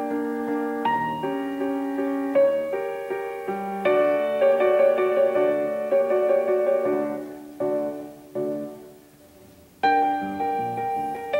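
Slow piano music: struck chords that ring and die away, fading low about eight seconds in before a new chord enters near ten seconds.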